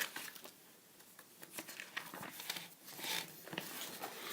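Faint paper rustling with scattered small handling clicks, about three seconds in a slightly louder rustle.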